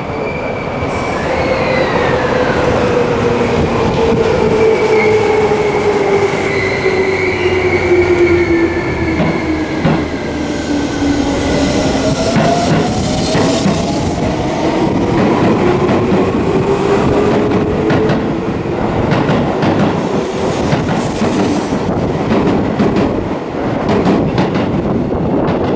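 Seibu 20000 series electric train running, heard from on board: the motor and inverter whine glides down in pitch over the first ten seconds or so, then higher tones rise, over steady wheel and rail noise.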